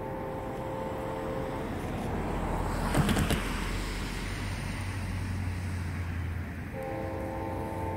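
Distant locomotive air horn of an approaching Amtrak Vermonter sounding for a grade crossing: a long multi-note chord that ends about a second and a half in, and another that starts near the end. Between them a road vehicle passes close by with a loud rush about three seconds in.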